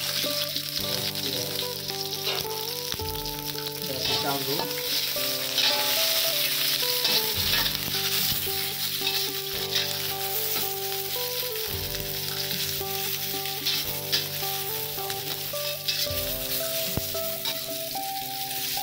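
Sliced onion and garlic sizzling in hot oil in a stainless steel wok, stirred with a spatula that scrapes and clicks against the pan.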